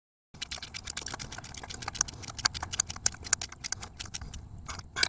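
Quick, irregular metallic clicking and clinking of hand tools and hose clamps being worked at the coolant hose connections in a car's engine bay.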